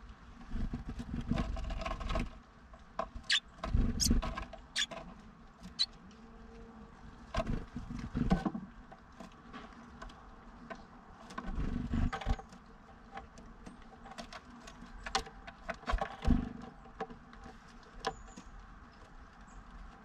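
Blue tit scrabbling and pecking on a wooden birdhouse feeding station close to the microphone: five irregular bursts of scraping and knocking, each with sharp taps.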